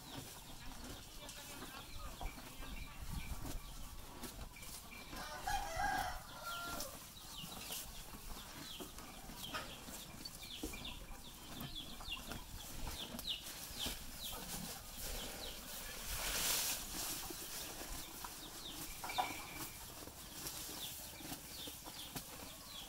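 Zebu cow chewing and tearing fresh green grass, with many short, crisp crunches. A rooster crows in the background about five seconds in, and a shorter fowl call comes near the end.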